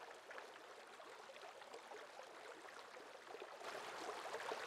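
Faint trickling water of a small stream, a fine patter of little splashes that grows louder about three and a half seconds in.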